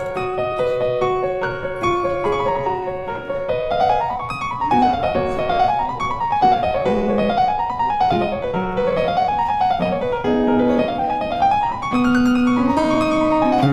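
Background piano music: a steady melody, with runs of notes sweeping up and down again and again through the middle.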